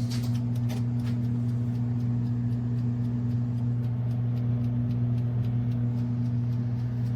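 Countertop air fryer toaster oven running with a steady electric hum and faint, evenly spaced ticks. The oven keeps running after being switched off and will not go off until it is unplugged.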